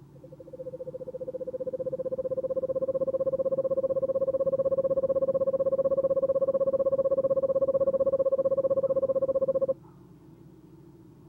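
Eastern screech owl giving its long monotone trill: a rapid run of pulses on one steady pitch. It swells in loudness over the first couple of seconds, holds for nearly ten seconds, then stops abruptly.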